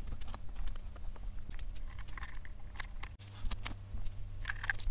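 Small irregular clicks and rattles of hard plastic parts and micro servos being handled and fitted together, over a steady low hum that gets louder about three seconds in.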